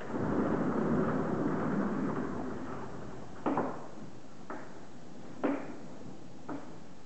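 A horse's hooves stepping on a sand arena floor: four short knocks about a second apart, the first and third the loudest. These come after about two and a half seconds of a breathy rushing noise at the start.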